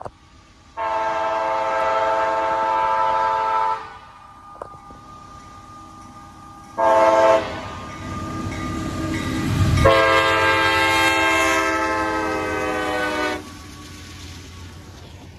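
Multi-note air horn of a CSX GE CW44AC diesel locomotive sounding the grade-crossing signal: a long blast, a short one and a final long blast. The chord drops slightly in pitch during the last blast as the locomotive passes close, and a low rumble of engine and wheels swells at that moment, then the train's running noise carries on.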